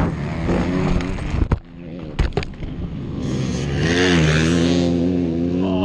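Dirt bike crash: the engine running, then a few sharp thuds and scrapes as the bike goes down about a second and a half in. Other motocross bikes then rev up and ride close past, their engines rising in pitch and holding steady.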